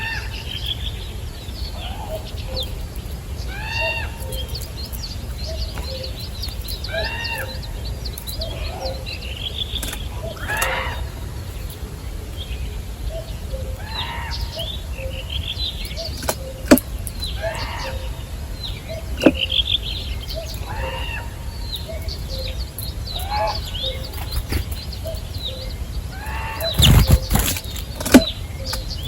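Birds calling repeatedly: short arching chirps every second or so, with a few sharp clicks and a brief low thump near the end.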